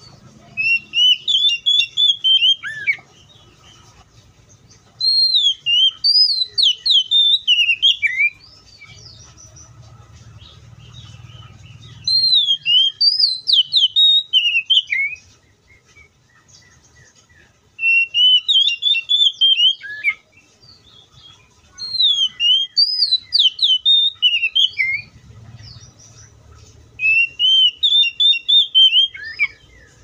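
Oriental magpie-robin singing: six loud phrases of quick, varied whistled notes that slide up and down, each phrase about three seconds long with short pauses between.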